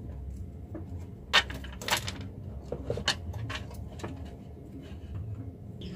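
Handling noise from a rack-mount audio effect unit being taken apart: scattered clicks and light knocks of the metal case and circuit board being moved and wires shifted inside it, the loudest knocks about a second and a half and two seconds in.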